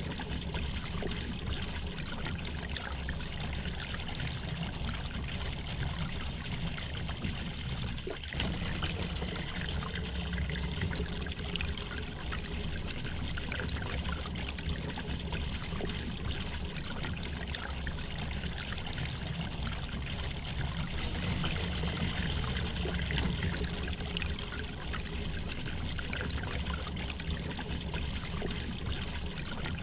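River water flowing gently over stones, a steady trickling and babbling.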